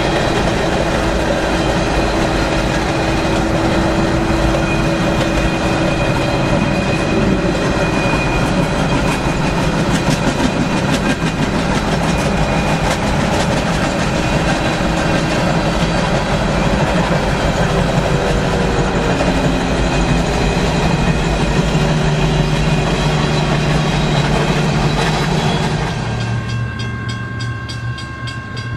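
Freight train cars rolling past close by: a loud steady rumble and clatter of steel wheels on the rails, with faint squealing tones. Near the end the rolling noise drops away abruptly.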